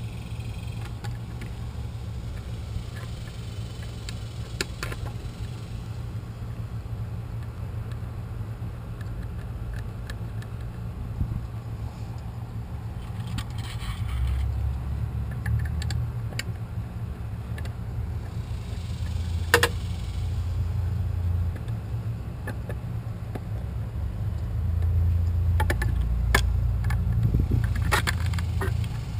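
Scattered light clicks, taps and metallic clinks from handling small hardware, the long mounting screws and a weatherproof outlet cover, over a steady low rumble. A sharper click about two-thirds of the way through, and a cluster of taps near the end.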